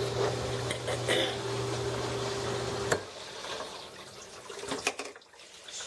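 Amana dishwasher running with a steady hum that stops suddenly with a click about halfway through as the door latch is released. Then quieter water sounds and a couple of sharp clicks follow.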